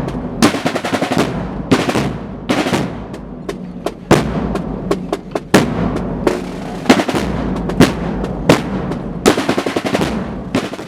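Drum section of a Spanish procession marching band playing: rolling snare drums with frequent sharp accented strikes over a low drum beneath.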